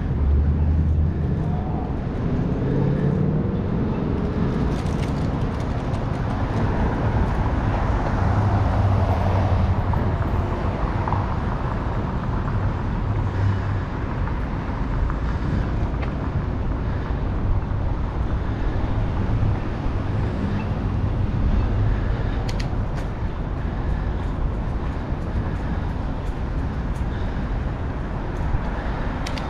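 Wind rushing over a helmet-mounted action camera's microphone while cycling, a steady low rumble, with city traffic noise underneath and a few light clicks near the end.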